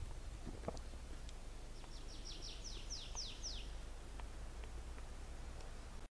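A songbird sings one phrase of about ten quick, high notes, each sweeping downward and growing louder and longer towards the end, lasting under two seconds. A steady low rumble and a few faint clicks lie beneath.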